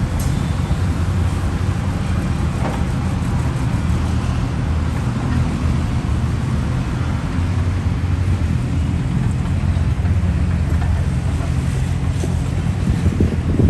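Diesel engine of heavy earthmoving machinery, a bulldozer or excavator, running steadily under work, with a few faint brief clicks.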